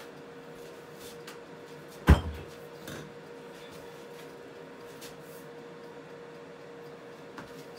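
A kitchen door being shut with one sharp thud about two seconds in, followed by a few faint clicks and knocks, over a steady faint background hum.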